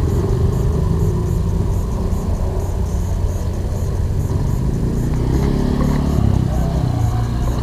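Steady low engine noise of road traffic. Around five to seven seconds in, one engine's pitch rises and falls.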